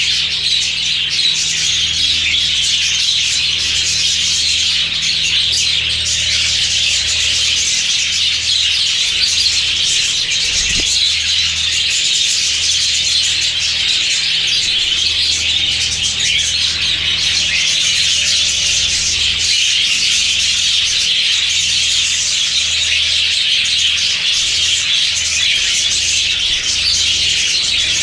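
A flock of budgerigars chattering nonstop: many overlapping high warbles and chirps, steady in level, with a low hum underneath.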